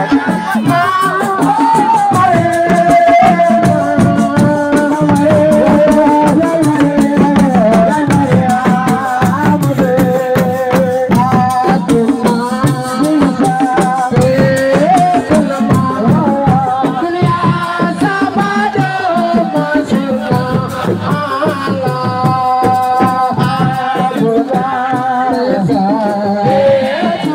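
Live Senegalese assiko music: a voice sings a wavering melody over dense, fast percussion with a rattling, shaken sound.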